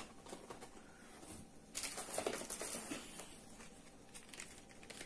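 Cosmetic products and their packaging being handled and rummaged through, with scattered light clicks and knocks and a stretch of rustling about two seconds in as the next small cardboard boxes are picked out.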